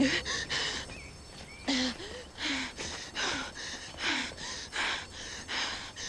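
A young woman's heavy, gasping breathing, with short sharp breaths about once every three-quarters of a second, some of them catching in her voice. It is the breathing of someone in shock.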